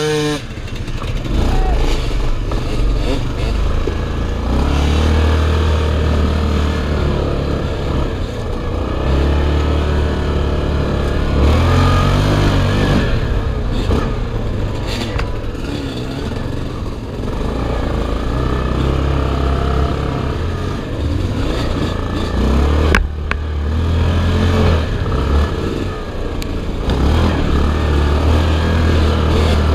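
ATV (quad) engine running and revving up and down as the quad is ridden along a rough dirt trail, with the machine rattling and one sharp knock partway through.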